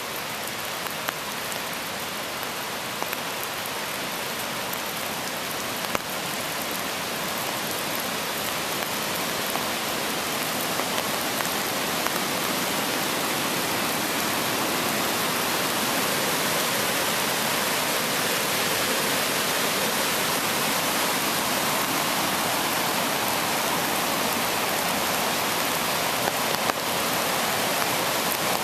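River Braan in spate, swollen after two days of heavy rain: a steady rush of fast white water that grows louder over the first twelve seconds or so, then holds level.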